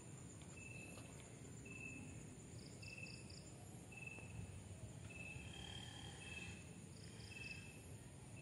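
Faint insect chorus outdoors: a steady high-pitched trill with short chirps repeating about once a second, and two brief runs of quick pulsing chirps, about three seconds in and again near the end.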